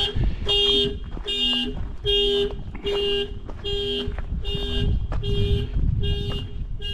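2004 Lexus IS300's security alarm going off, its horn honking in a steady pulse about twice a second. The car came without keys, so the alarm cannot be disarmed.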